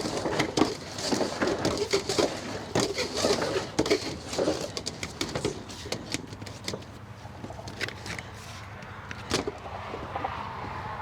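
Carpet-cleaning hose being handled and coiled up, with irregular knocks, scrapes and rubbing that are busiest in the first half and thin out later.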